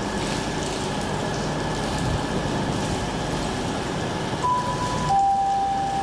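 Steady rumble and hiss of trains at a railway station platform. About four and a half seconds in, a clean electronic two-note tone sounds, a higher note falling to a lower one.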